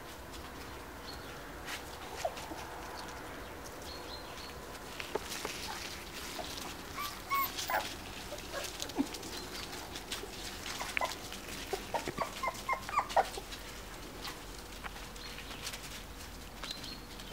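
Four-week-old Finnish Lapphund puppies whimpering and yipping: a string of short, high squeaks, most of them in the middle stretch.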